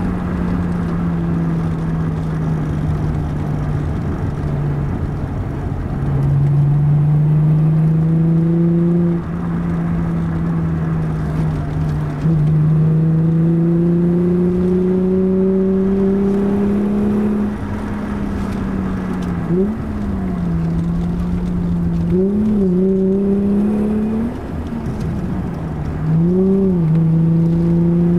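Alfa Romeo 75's 3.0-litre Busso V6, heard from inside the cabin, pulling in gear while driving. Its note creeps slowly upward with the road speed and gets louder where more throttle is fed in. In the second half it dips briefly and picks up again three times.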